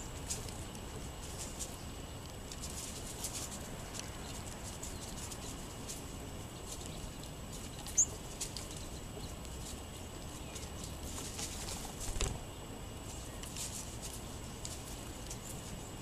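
Golden-crowned and white-crowned sparrows pecking birdseed off a wooden picnic table: light, scattered tapping over a steady outdoor hiss. A short high chirp about halfway through, and a soft thump a few seconds later.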